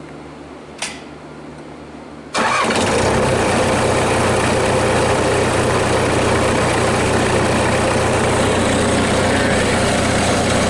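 A single click about a second in, then a tractor engine starts abruptly at about two and a half seconds and settles into a steady idle.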